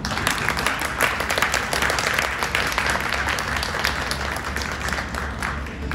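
Audience applauding: a dense patter of hand claps that thins out near the end.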